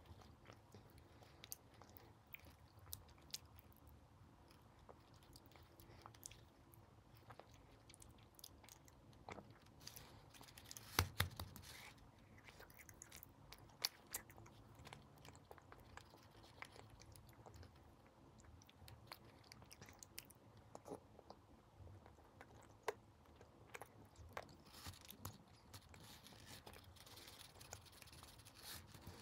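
Faint chewing and biting of a chocolate sweet, with scattered small crunching clicks; the loudest cluster comes about a third of the way in.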